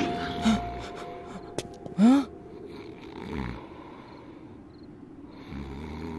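Cartoon snoring from a sleeping sheriff: a few short swooping snore sounds, the loudest about two seconds in, then a deeper, longer snore near the end.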